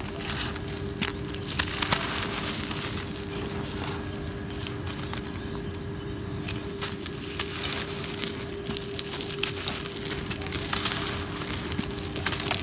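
Hands squeezing and crumbling chunks of dry, gritty cement, giving a continuous gritty crackling and crunching with many small sharp snaps, a few louder ones in the first couple of seconds. A steady low hum runs underneath.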